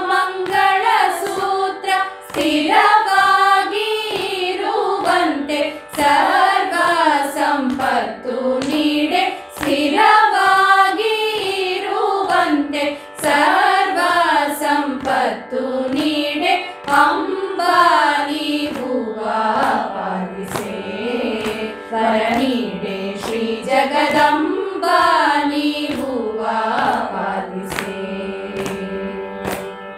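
Group of women singing a Kannada devotional song in unison, Carnatic style in raga Brindavani Sarang, with long ornamented phrases over a steady drone. Light hand taps keep the beat.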